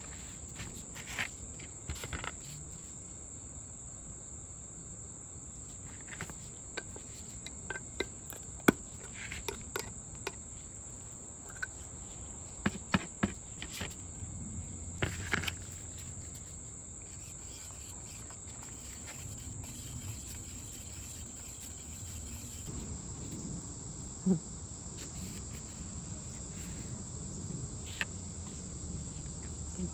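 Steady high-pitched insect chorus throughout, with scattered sharp clicks and knocks as a metal can of wood stain is pried open, its lid handled and the can set down.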